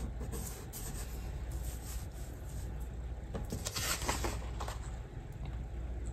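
Paper handling: a sticker pressed and rubbed down onto a planner page, then paper rustling and sliding about four seconds in, over a steady low hum.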